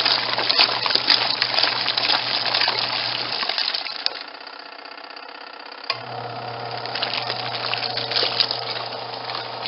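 A portable twin tub washing machine's wash tub agitating: a motor hum with water and laundry sloshing and light clinks. A little over a third of the way in, the motor stops for about two seconds, leaving only quieter swirling water, then starts again as the pulsator changes direction.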